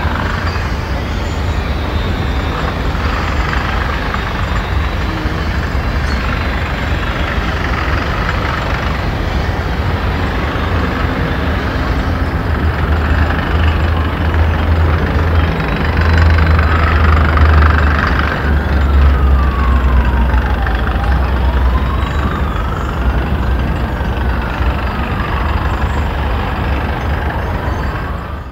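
City traffic rumble, with a heavy vehicle passing about two-thirds of the way through. An emergency-vehicle siren wails slowly up and down, faint at first and plainer through the second half.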